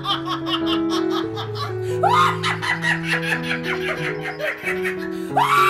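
Background music with held notes over a woman's hard, repeated laughter, a fresh peal of laughter starting about two seconds in and again near the end.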